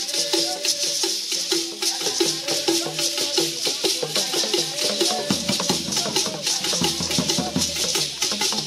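Traditional Ghanaian music played live: gourd shakers rattling in a fast, even rhythm over a group singing a short repeated phrase, with low drumming coming in from about five seconds.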